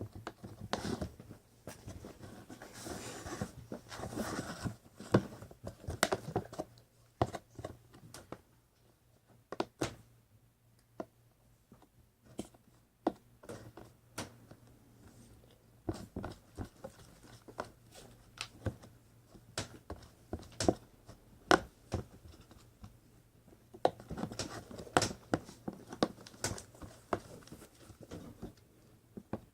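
Glue and food coloring being stirred in a bowl: a utensil scrapes and clicks against the bowl in irregular strokes. The stirring is busier and more continuous near the start and again near the end.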